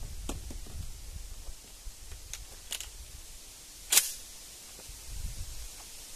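A single shotgun shot firing a Gualandi slug, a sharp crack about four seconds in with a short tail after it. A few faint clicks come before it.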